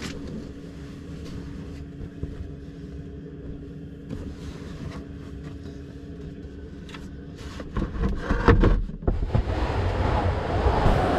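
Rustling and knocking as bedding and fittings are handled inside a camper van, over a steady low hum. About eight seconds in, the thumps and rustling get much louder and rougher.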